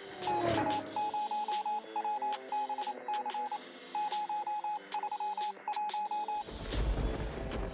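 Electronic background music with a repeated short beeping motif over sustained notes, and a falling swoosh in the first second. About six and a half seconds in, the beeps stop and give way to a rougher, noisier passage with a deep low end.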